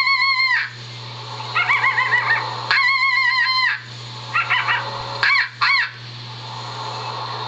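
Coyote howls and yips played through a TV speaker: two long wavering howls of about a second each, with short bursts of yips between and after them, stopping about six seconds in.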